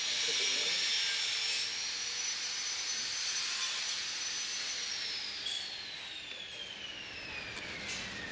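Wood-shaving pulverizer machine running with a hissing, whirring noise and a high whine that falls steadily in pitch from about five seconds in.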